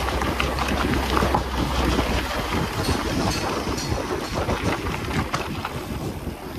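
Wind buffeting the microphone, with an uneven low rumble and scattered small clicks and rattles.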